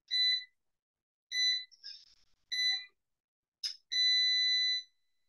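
Electronic beeper sounding three short high beeps a little over a second apart, then one longer beep lasting about a second near the end, with a sharp click just before it.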